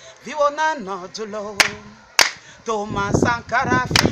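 Voices singing a slow, chant-like song with sharp claps at intervals; the singing grows fuller and louder about three seconds in.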